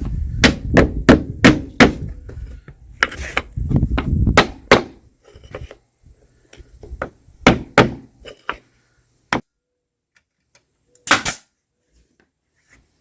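Hammer tapping a wooden window-moulding strip into place: a quick run of sharp taps in the first couple of seconds, then slower, scattered taps, the last about eleven seconds in.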